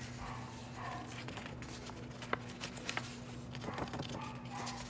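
Paper sheets rustling and crinkling as they are handled and folded, with a few sharp crackles about halfway through, over a steady low hum. A dog whimpers and yips faintly in the background.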